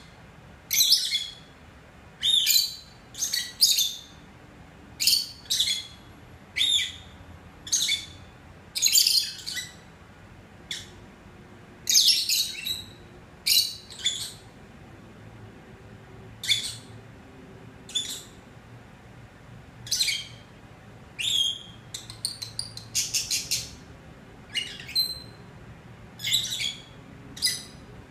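Peach-faced lovebirds chirping: short, sharp, high-pitched calls about once a second, with a quick run of calls a little past the middle.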